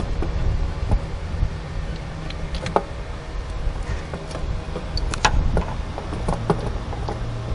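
Irregular light metallic clicks and taps as a hand works at the starter motor's bolts and wiring behind the intake manifold, over a steady low background hum.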